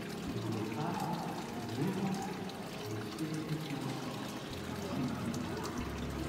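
Water poured by hand over an infant's head during a baptism, splashing into the font basin below.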